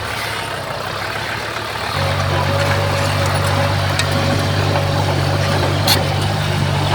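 Heavy diesel engine of earthmoving machinery running steadily. About two seconds in it grows louder and deeper, and there is a single sharp click near the end.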